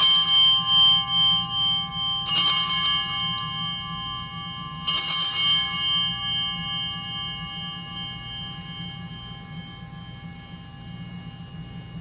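Altar bells rung three times at the elevation of the host, each strike ringing with several clear tones that fade slowly over the following seconds.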